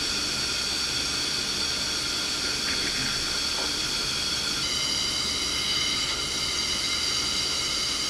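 Dry nitrogen purging through a freshly soldered copper pipe: a steady hiss carrying several thin whistling tones, some of which shift in pitch about halfway through. The gas is kept flowing while the joint cools, to stop scale forming inside the tubing.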